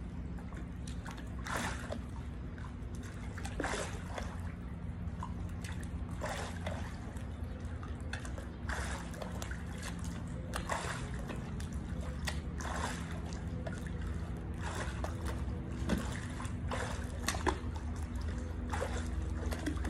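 Pool water sloshing and splashing as a person squats down into it and rises again, with a short splash about every two seconds over a steady low hum.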